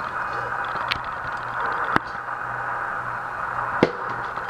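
Hands working on ceiling fan parts, tying something on: faint rustling and three light clicks, the last just before the end, over a steady hiss and low hum.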